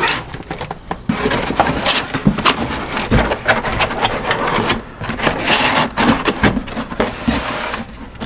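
Cardboard packaging being handled: a folding cardboard insert scraping and rubbing against the sides of a shipping box as it is lowered in and pressed into place, with sharp knocks and a dull thump about three seconds in.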